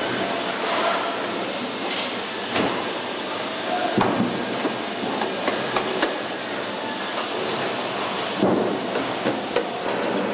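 Truck assembly-hall noise: a steady machinery din with scattered metallic clanks and knocks, about five of them standing out.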